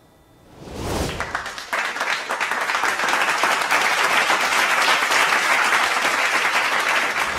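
Applause from many people clapping together, starting about a second in, building quickly and then holding steady.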